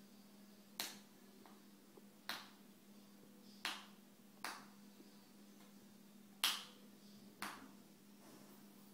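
Green-winged macaw making sharp beak clicks, six single clicks at irregular intervals about a second or so apart.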